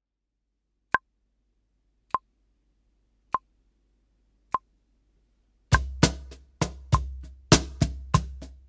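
Metronome clicking four times at 50 beats per minute as a count-in. Then, just under six seconds in, a Meinl Artisan Cantina Line limba cajon starts a slow samba groove in even sixteenth notes, mixing deep bass strokes, sharp slaps and soft ghost notes, with the metronome still clicking the beat.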